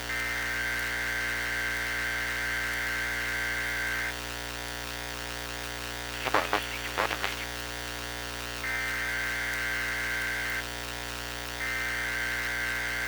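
Midland WR120EZ weather radio receiver putting out hum and hiss between announcements on the Weatheradio broadcast, with a high buzzing tone band that switches on and off in stretches of a few seconds. A brief cluster of crackling bursts comes about six seconds in.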